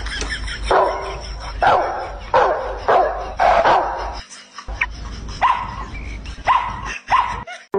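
A small dog barking repeatedly, roughly once a second, with a brief pause a little past halfway.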